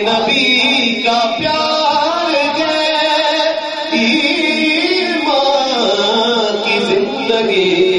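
A man's solo voice singing a devotional recitation, holding long notes that waver and glide in pitch.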